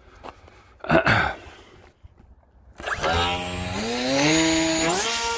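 Emax 2204 2300 kV brushless motor spinning up its 6x4.5 pusher propeller: a whine that climbs in pitch in steps as the throttle is advanced, then holds steady at a high pitch near the end. A brief loud burst of noise comes about a second in.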